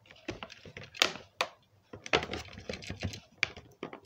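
Rigid clear plastic packaging clicking and tapping as it is handled and prised apart to free a diecast model, a run of sharp clicks with two louder ones about a second in.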